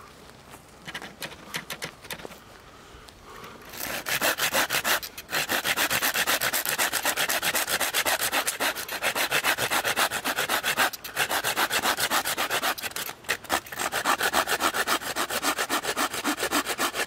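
A knife blade scraping along a green wooden stick in fast repeated strokes. A few light strokes come first, then continuous rapid scraping from about four seconds in, broken by a few short pauses.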